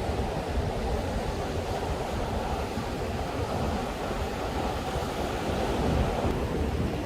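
Atlantic surf washing and breaking on a beach, a steady rushing wash that swells a little near the end, with wind buffeting the microphone.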